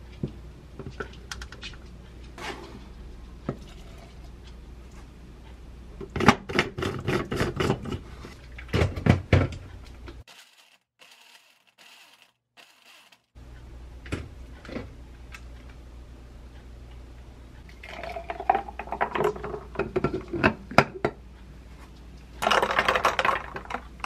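Spoon and glass clinks and knocks as vanilla ice cream is scooped into a glass blender jar and the jar is set onto its base, then a short loud burst of the retro blender running near the end to whip milk and ice cream into a shake.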